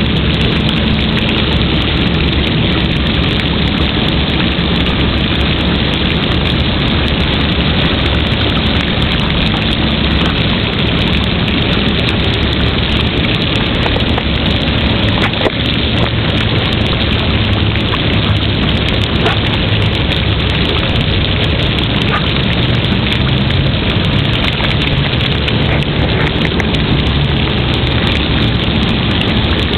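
Playground water sprinklers spraying, a steady hiss of water falling on wet pavement.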